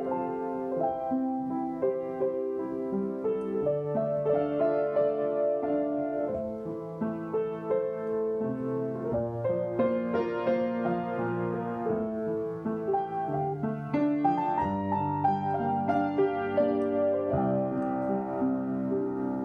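Yamaha upright piano played solo: a melody line over held bass notes and chords, the notes ringing on into one another.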